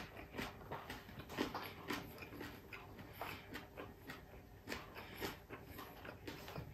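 A person chewing crispy fried chicken-feet chicharon with rice: faint, irregular crunches and wet mouth clicks, a few each second.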